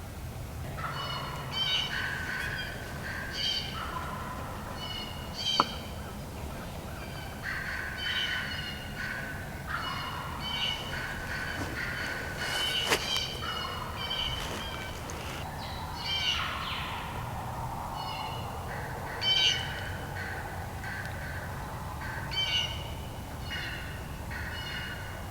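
Wild turkey gobblers gobbling again and again, more than one bird, with a gobble every second or two.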